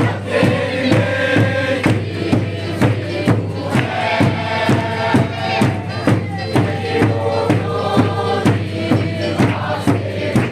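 Music for a circle dance: a group of voices singing or chanting together over a steady beat of about two strokes a second.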